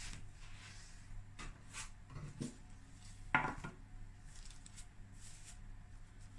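A metal baking tray lined with baking paper being handled on a stone countertop: faint paper rustles and scrapes, with one louder knock of the tray about a third of the way in.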